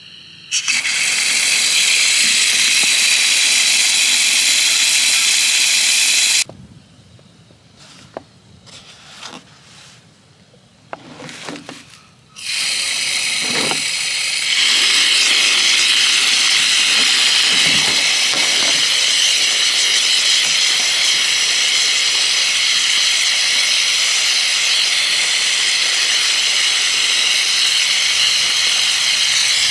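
Outdoor yard hydrant running, its water hissing and spraying into a metal tub of seed-starting soil. The flow stops about six seconds in and starts again about twelve seconds in, getting louder a couple of seconds later.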